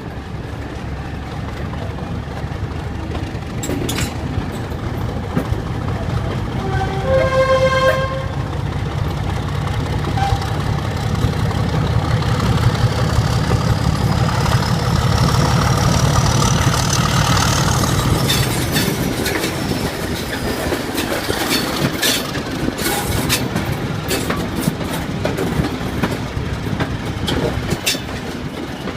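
Class 31 diesel locomotive's V12 engine working hard as it passes: the heavy engine note builds to a peak about halfway through, with a high whine rising then falling, and then eases off. A brief horn blast sounds about seven seconds in. Later the wheels click over the rail joints.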